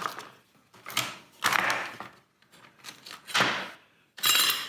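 Small hand tools, metal rules, squares and the like, being picked up and set down in a wooden tool till: several separate knocks and clatters, with a ringing metallic clink near the end.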